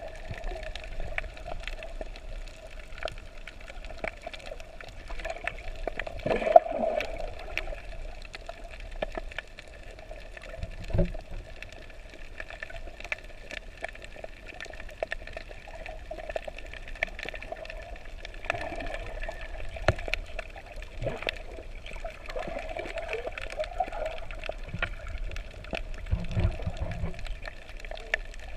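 Underwater sound heard through a submerged camera: a steady water hiss and gurgle with scattered clicks and crackles throughout. There is a louder crackle about six seconds in, and low knocks around eleven seconds and again near the end.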